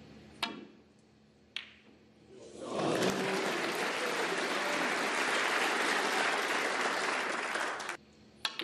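A sharp click of a snooker cue striking the cue ball, another ball click about a second later, then audience applause for about five seconds that cuts off suddenly.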